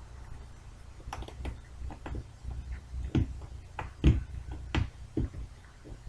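Irregular small clicks and knocks of a screwdriver and small screws against a laptop's plastic screen frame as the screws are put back in, the loudest knock about four seconds in, over a steady low hum.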